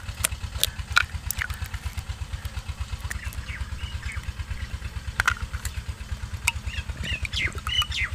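An engine running steadily with an even, fast beat of about seven to eight pulses a second. A few sharp clicks of eggs being cracked against a clay bowl, and faint short bird chirps, come over it.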